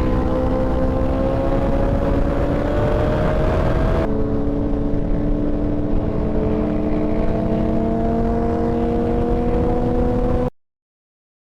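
Suzuki Hayabusa's inline-four engine under way, its pitch climbing slowly, dropping at a gear change about four seconds in and climbing again, with wind rushing over the microphone. The sound cuts off suddenly near the end.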